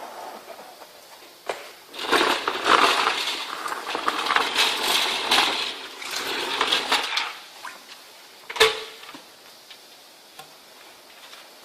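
Small metal parts such as screws clinking and rattling with a rushing noise for about five seconds, as an air-powered wet/dry vacuum cleaner sucks them up, then a single sharp knock.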